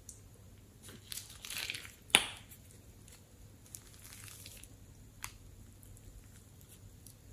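Green slime squeezed out of a bag onto slime in a glass bowl: wet crackling and squishing, with one sharp pop a little after two seconds and a small click about five seconds in.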